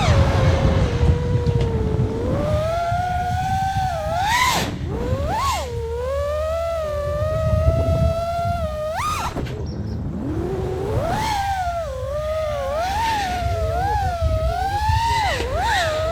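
FPV freestyle quadcopter's brushless motors (MEPS 2207 1750KV) whining, the pitch rising and falling with throttle. There are sharp throttle punches at about four and a half and nine seconds, and a brief throttle cut near ten seconds, over a steady low rumble.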